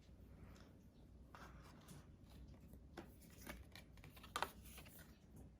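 Faint rustles and light clicks of tarot cards being handled and laid down, with one slightly louder click about four seconds in.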